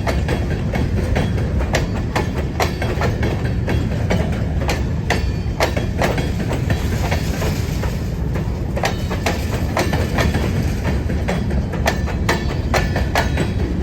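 Train rolling on the rails: a steady low rumble with uneven clicks of wheels crossing rail joints.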